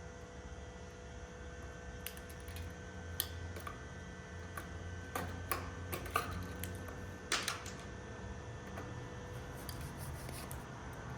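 Scattered light clicks and taps of a wall light switch and its copper wires being handled as the ground wire is fitted to the switch, over a steady low hum.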